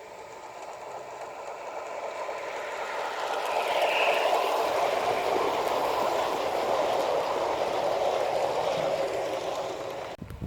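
Gauge 1 model train running on garden track, its wheels and motor making a steady rattling rumble. It grows louder as the train comes closer, is loudest from about four seconds in, and cuts off abruptly near the end.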